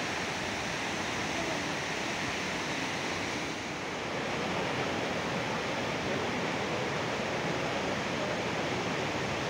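Steady rushing of a mountain stream in flash flood, fast muddy floodwater running high.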